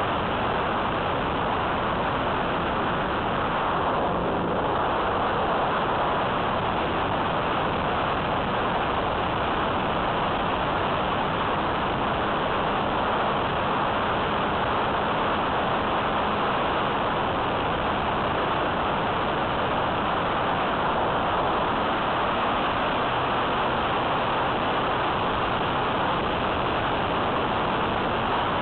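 Steady rushing noise of an E-flite Apprentice S15e electric RC plane in flight: airflow and propeller noise picked up by a small camera mounted on the plane itself. It stays at an even level throughout.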